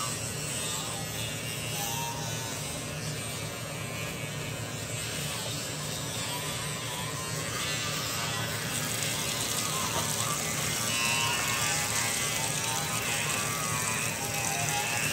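Electric toothbrush buzzing steadily during tooth brushing.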